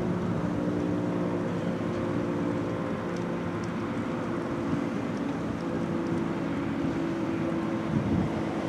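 Federal Signal RSH-10 rotating outdoor warning siren sounding a steady low tone. A few gusts of wind hit the microphone near the end.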